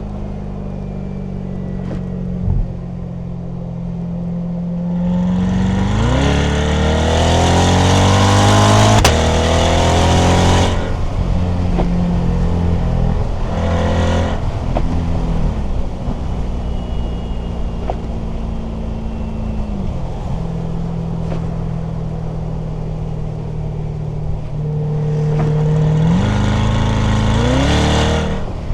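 Corvette C8's V8 engine and exhaust under way: steady cruising, then a hard acceleration with the revs climbing for about five seconds before dropping sharply. There is a short burst of throttle in the middle and another climbing rev near the end.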